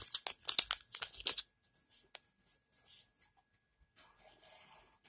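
Plastic foil shampoo sachet crinkling as it is handled: a quick run of sharp crackles in the first second and a half, a few scattered ticks, then a softer rustle near the end.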